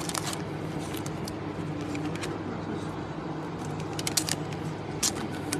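Baseball trading cards being handled and flipped through: short, sharp clicks and rustles, with a quick cluster about four seconds in, over a steady low hum.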